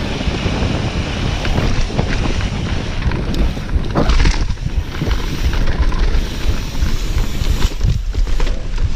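Wind rushing over a chest-mounted GoPro Hero5's microphone as a mountain bike rolls down a dirt trail, with tyre crunch on dirt and rock and knocks from the bike over bumps, the sharpest about four seconds in and near the end.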